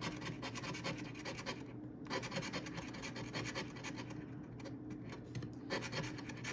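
A coin scratching the latex coating off a paper scratch-off lottery ticket in quick, rapid strokes, with a brief pause about two seconds in.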